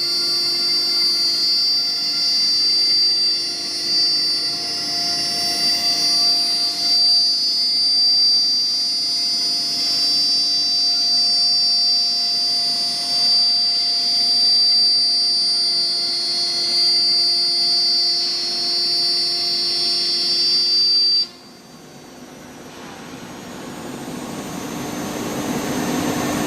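BMG 1325 CNC router running, its spindle motor giving a steady high-pitched whine. The whine cuts off suddenly about 21 seconds in, leaving a quieter rushing noise that slowly grows louder.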